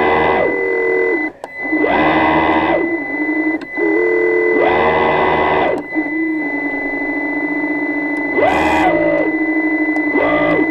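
Motor whine heard through the underwater camera. Over a steady high tone and a lower hum, the whine rises in pitch and falls back again in several surges, about every two to three seconds.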